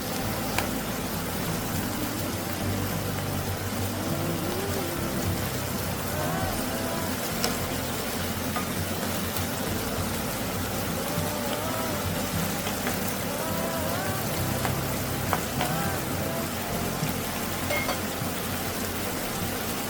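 Food sizzling in a hot frying pan: a steady hiss with a few sharp pops, under background music.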